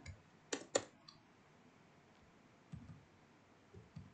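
Computer keyboard keys being typed: two sharp clicks close together just under a second in, then a few faint, soft taps.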